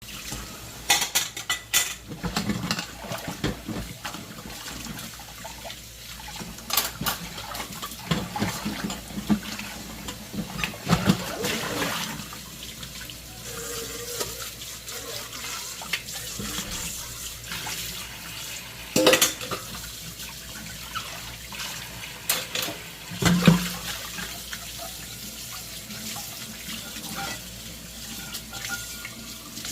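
Dishes being washed by hand at a sink: tap water running steadily, with dishes and utensils clattering against each other now and then.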